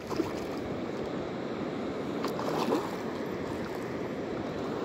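Steady rush of river water and wind noise at the bank, with a small hooked Chinook salmon splashing at the surface.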